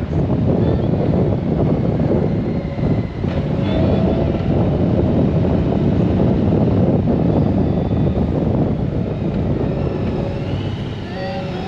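Honda GoldWing motorcycle underway: steady engine, road and wind noise, heavy in the low end.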